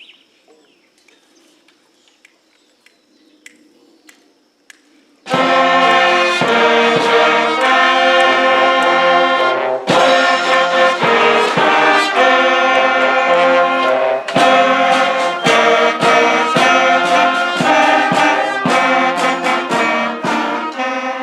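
Faint quiet with a few small clicks, then, about five seconds in, a brass band suddenly strikes up and plays loudly, with trombones and trumpets carrying the tune.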